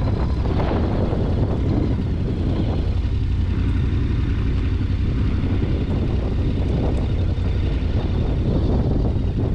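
A Yamaha Ténéré 700's parallel-twin engine running steadily at low revs, a constant low rumble close to the microphone, as the bike rolls slowly over rough ground.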